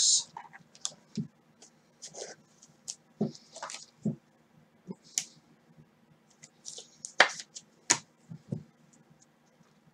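Sparse light clicks and taps with faint rustling from trading cards being handled on a table, with two sharper clicks about seven and eight seconds in.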